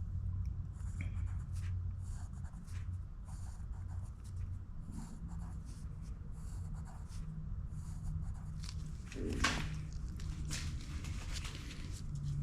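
Pen writing on paper: a run of short scratchy strokes over a steady low hum. There is one short louder noise about nine and a half seconds in.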